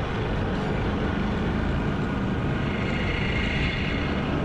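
Motorcycle running steadily on the road, with engine and road noise at an even level.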